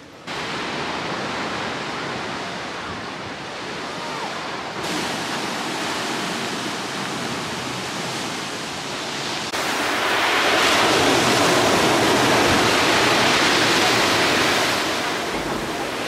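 Rough-sea surf breaking on a pebble beach: a steady rushing wash of waves that grows louder in two steps, about five seconds in and again near ten seconds.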